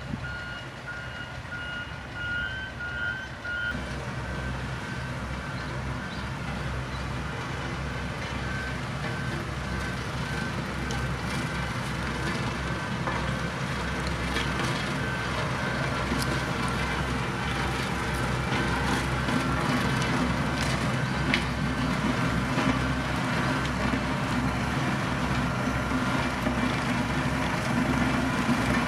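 Diesel engine of heavy road-construction machinery running steadily, with a reversing alarm beeping repeatedly. The beeping is loud for the first few seconds, then fainter, while the engine grows louder toward the end, with scattered crackling from stone under the machine.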